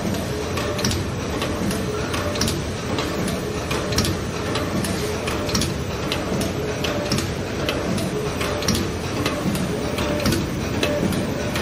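Non-woven spa bed sheet folding and cutting machine running steadily: a dense mechanical clatter with sharp clicks repeating roughly once a second.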